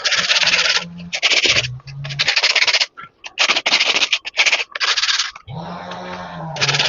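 Repeated hand scraping strokes, about one or two a second, like a tool or abrasive worked back and forth over a surface. Just before the end a short pitched whir breaks in.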